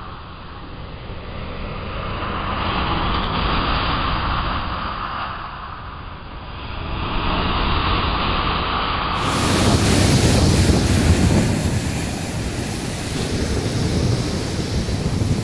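Sea surf breaking and washing up a beach, swelling and falling away every few seconds. About nine seconds in it becomes louder and fuller, with a deep low rumble.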